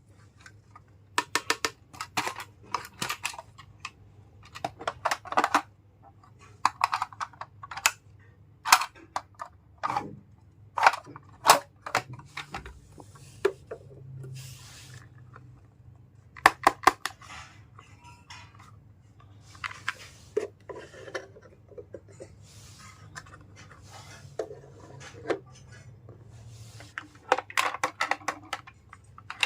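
Small plastic toys and their packaging being handled: irregular clicks, taps and light clatter, with stretches of crinkly rustling between them.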